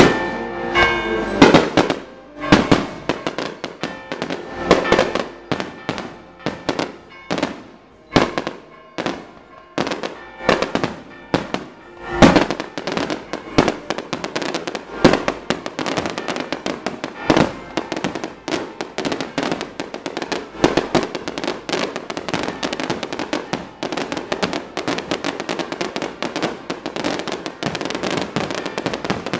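Firecrackers going off: separate, uneven bangs at first, then from about twelve seconds in a dense, nearly continuous run of sharp reports. A short held musical chord sounds at the very start.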